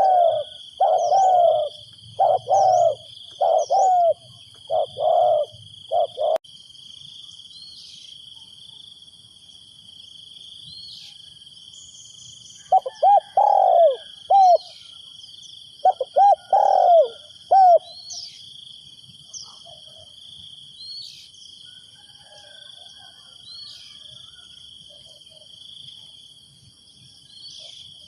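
Spotted dove cooing in repeated phrases, the series breaking off about six seconds in and starting again a few seconds later, then stopping. Under it runs a steady high insect drone, with faint high chirps from small birds.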